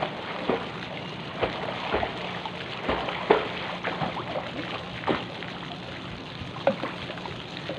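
Pool water splashing and lapping close by as a person swims, with irregular small splashes every half-second to a second over a steady wash of water.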